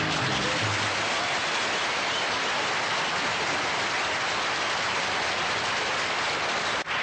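Studio audience applauding steadily. The last low notes of an upright bass and acoustic guitar fade out in the first second.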